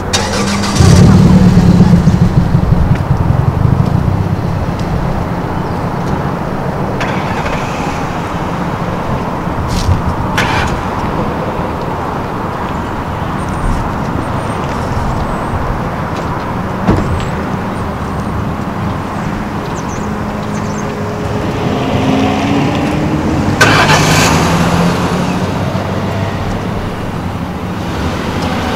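Ford Crown Victoria police patrol cars driving past close by, a steady engine and tyre rumble that is loudest for a few seconds starting about a second in and swells again near the end as another cruiser passes.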